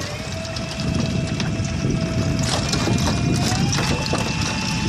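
Small boat's outboard motor running under way, its steady whine stepping up in pitch twice, just after the start and again about three and a half seconds in, as the revs rise; water rushing along the hull underneath.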